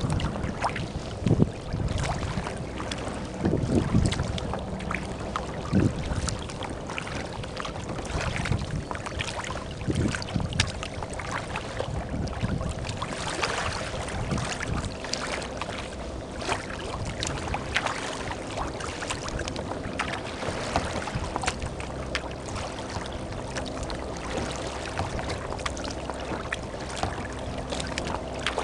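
Choppy water slapping and splashing against a kayak's hull in irregular small hits. Gusts of wind buffet the microphone during the first few seconds.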